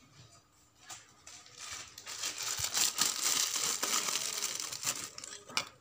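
Thin plastic bag crinkling as it is handled and opened, loudest in the middle, with a couple of sharp clicks near the end.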